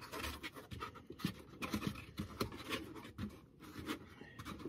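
Handling noise as a bus compressor unit is lifted out of the foam lining of a wooden crate: irregular light knocks, rubs and scrapes.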